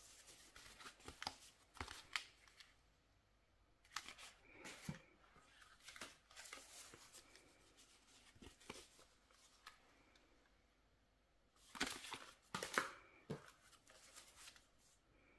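Quiet handling noise of clear stamp sheets and their card packaging being picked up, slid and set down: scattered soft clicks and rustles, busiest about twelve seconds in.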